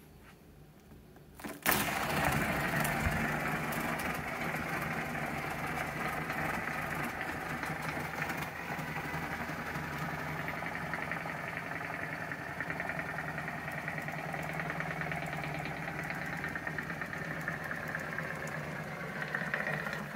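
Giant latex balloon deflating through its open neck once the clothespin holding it shut is taken off. The escaping air sets the neck vibrating in a steady low buzz over a hiss. It starts suddenly about a second and a half in and holds steady after that.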